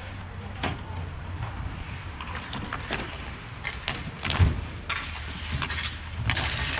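Roller hockey play: sticks, puck and skate wheels clacking and rolling on the rink, a scatter of sharp clicks and knocks over a steady low rumble, with a louder thump about four and a half seconds in.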